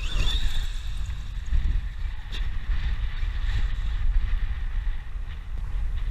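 Wind buffeting the camera microphone in a steady low rumble, over the faint high whine of the Traxxas X-Maxx 8S RC truck's 1600 kV brushless electric motor as it drives up the gravel pile, the whine bending in pitch near the start.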